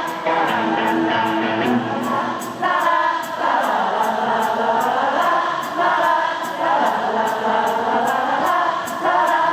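A live band playing over a steady beat, with many voices in the audience singing along in chorus.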